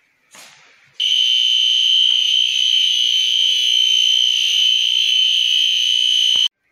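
Electronic alarm sounding one loud, steady high-pitched tone for about five seconds, then cutting off abruptly.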